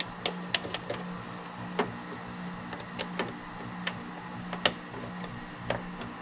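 Irregular small clicks and taps from handling control wiring and terminal connections, about a dozen spread unevenly, over a steady low hum.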